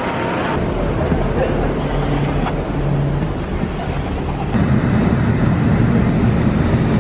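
Shuttle bus running on the road, heard from inside: a steady low rumble of engine and road noise that gets louder about four and a half seconds in.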